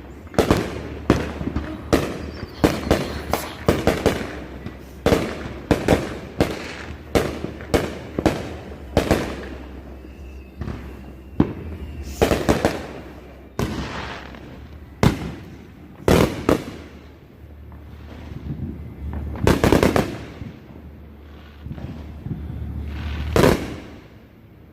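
Neighbourhood fireworks going off: a rapid run of sharp bangs, several a second, for about the first half, then slower, scattered bangs, the loudest near the end.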